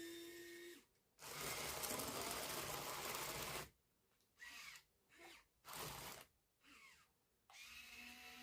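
Small electric motors of a 1:50 scale RC excavator and loader whining as the controls are worked: a louder, rougher run about a second in, then several short start-stop spurts that slide in pitch, and a steadier whine again near the end.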